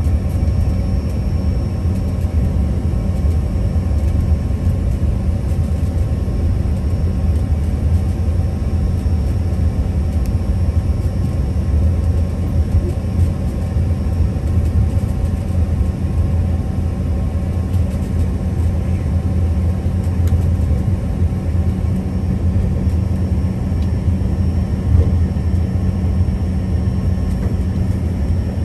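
Steady cabin drone of an Embraer ERJ145 taxiing on the ground: a deep, even rumble with a few faint steady whining tones above it from its rear-mounted Rolls-Royce AE3007 turbofans running at a constant setting.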